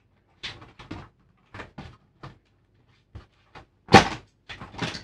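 Short clicks and knocks from the TV's main power board and its cable connectors being handled and slid off the panel's sheet-metal back, the loudest knock about four seconds in.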